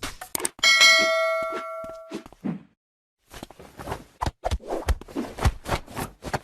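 A single metallic ding, something struck ringing out and fading over about a second and a half, among scattered knocks. After a brief silent break, a busy run of knocks and taps follows.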